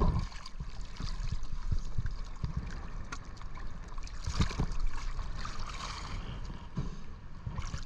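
Sea water sloshing and gurgling around a camera bobbing at the surface, with a few sudden knocks.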